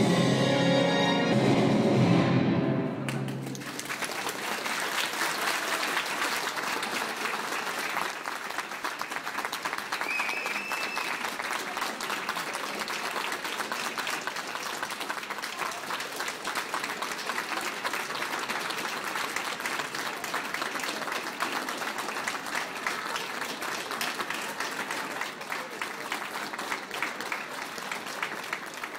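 Orchestral music ends about three seconds in, and an audience then applauds steadily, the clapping fading near the end.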